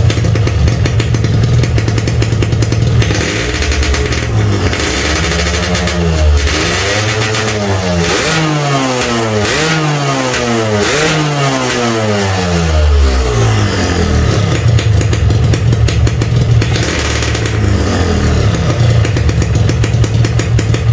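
Yamaha RX-King's two-stroke single-cylinder engine running. It idles steadily, is revved up and down several times in quick succession between about 4 and 14 seconds in, then settles back to a steady idle. The bike is standard and still warming up after a hard cold start.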